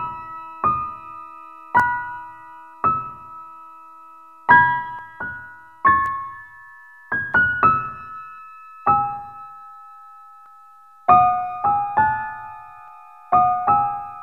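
Background music: slow, sparse piano notes and chords, each struck and left to fade, with short pauses between them.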